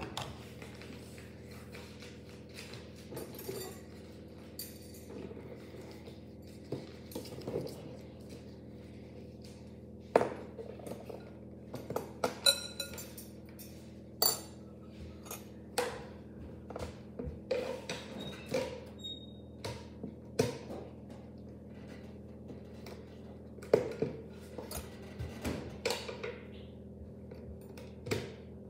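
Irregular clinks, taps and knocks of kitchen utensils and dishes being handled around a mixing bowl, over a faint steady hum.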